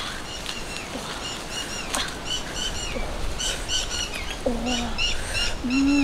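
Small birds chirping: quick runs of short, high chirps that go on throughout. A couple of sharp clicks, and two short low hum-like sounds near the end.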